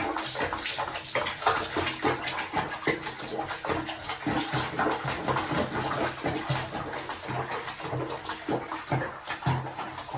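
Water splashing and sloshing in quick, irregular bursts.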